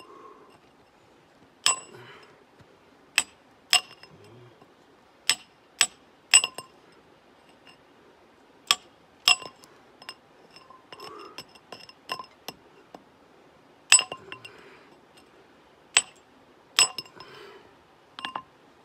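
A hammer striking a steel chisel held in a hole in rock. There are about a dozen irregularly spaced blows, each a sharp metallic clink with a short ring.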